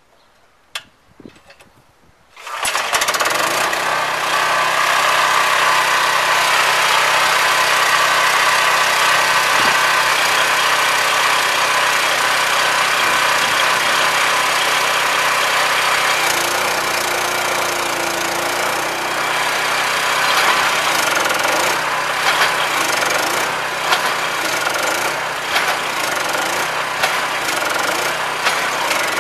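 A 13-horsepower Honda single-cylinder engine on a cable tool water-well drill rig starts about two and a half seconds in after a few faint clicks, then runs steadily. In the later part, regular knocks come about once a second as the walking beam starts cycling the drill.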